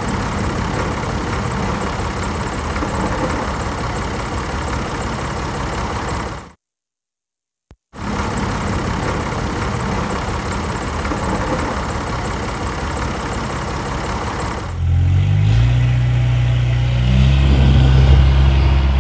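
A motor running steadily with a thin high whine, cut off suddenly about six and a half seconds in and back about a second later. From about fifteen seconds in, low steady tones that step up and down in pitch come in and grow louder.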